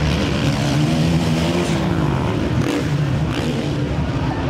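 Motocross race bike engines running and revving, their pitch rising and falling.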